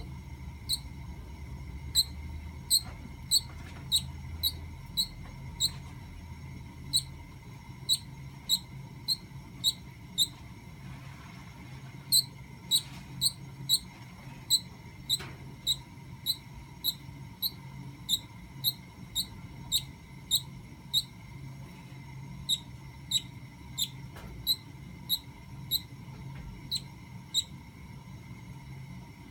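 A pet bird with avian gastric yeast making short, high squeaks over and over at an even pace, a bit faster than one a second, with a couple of brief pauses; the owner suspects the squeaking points to some illness besides the AGY.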